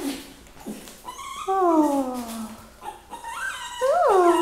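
Small black-and-tan puppy whining: one long falling whine about a second and a half in, then a few shorter whines that rise and fall near the end.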